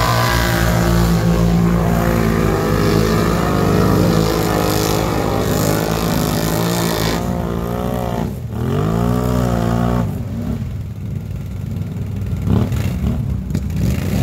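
ATV engines revving hard through deep mud. Their pitch drops about eight seconds in, climbs sharply again, then falls to a lower, rougher running level near the end.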